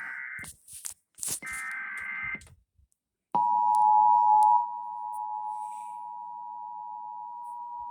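Emergency Alert System tone sequence. The last two bursts of the SAME digital data header come first, with clicks between them. About three seconds in, the steady two-tone EAS attention signal begins; it is loud for about a second, then holds a little quieter.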